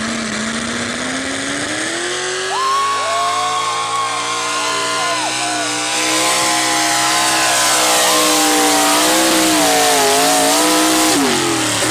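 Big-block V8 of a 1955 Ford F-100 two-wheel-drive pulling truck under full throttle in a truck pull: the revs climb steeply over the first few seconds, hold high and waver, then drop just before the end. A rushing noise joins the engine about halfway through.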